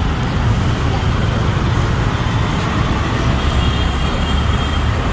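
Steady roadside traffic noise, a continuous low rumble with no distinct events.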